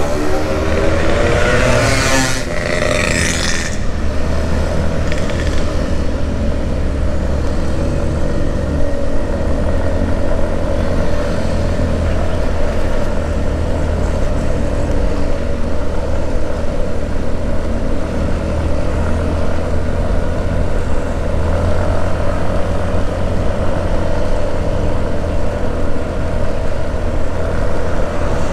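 Steady road and wind noise of a motorcycle riding along, with the engine running under it and wind buffeting the microphone. A brief sound that shifts in pitch passes in the first few seconds.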